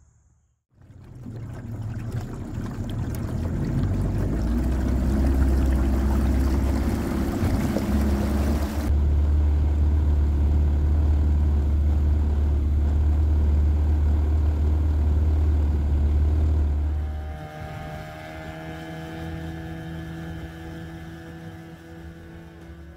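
Johnson 25 hp outboard motor running at speed on a small boat. The sound changes abruptly about nine seconds in. It drops back near the end as guitar music comes in over it.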